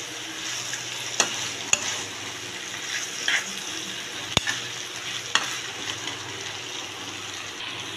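Chicken pieces sizzling as they fry in oil in a pan, stirred with a spoon. A few sharp clicks about a second in, near the middle and later on, and a short scrape around three seconds in, from the spoon against the pan.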